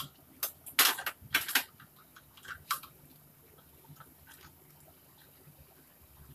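A run of sharp clinks, knocks and short scrapes from kitchen utensils handled at a stainless steel wok and a seasoning container, dense for the first three seconds, then a few faint ticks.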